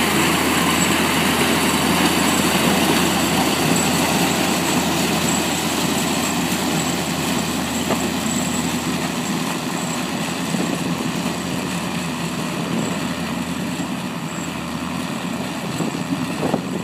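Oliver tractor engine running steadily under load while it drives a pull-type corn picker through the corn, mixed with the picker's mechanical running noise. It grows slightly fainter as the rig moves away.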